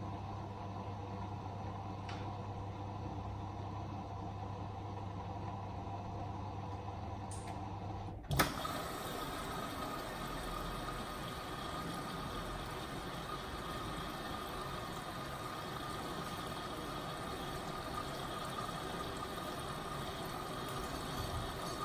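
Hotpoint WM63P washing machine tumbling a towel load with a steady hum, which stops with a sharp click about eight seconds in. A rushing hiss of water filling follows as the machine moves into its final rinse.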